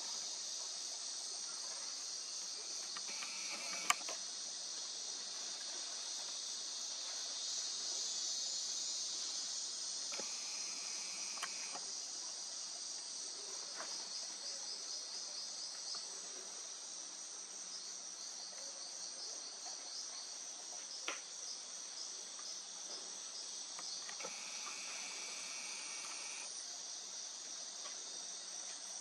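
Forest insect chorus: a dense, steady high-pitched chirring of crickets or katydids. A steadier, lower buzz comes in three times for a second or two, and a few sharp clicks stand out, the loudest about four seconds in.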